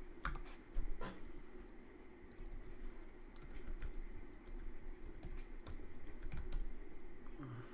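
Typing on a computer keyboard: irregular key clicks as a short command is entered, with the loudest taps about a second in.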